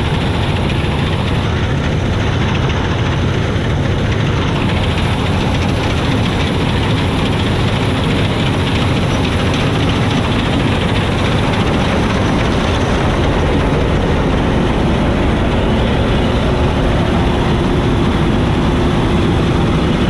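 Massey Ferguson 86 combine harvester running at work, a loud, steady drone of engine and machinery.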